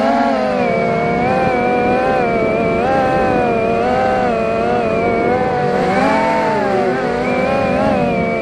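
FPV racing quadcopter's brushless motors and propellers whining, the pitch rising and falling continually with throttle.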